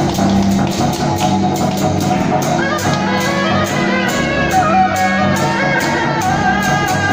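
Loud temple-procession music: a quick steady beat under several wavering melody lines that come in about two and a half seconds in.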